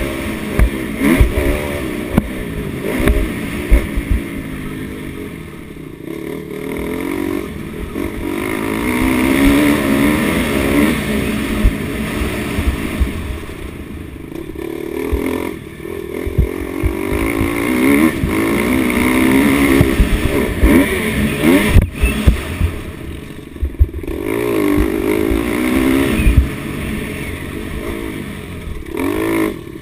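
Motocross dirt bike engine heard from a camera on the bike, revving up and falling off again and again as the rider accelerates, shifts and rolls off around the track. Sharp knocks and rattles come through from the bike hitting bumps.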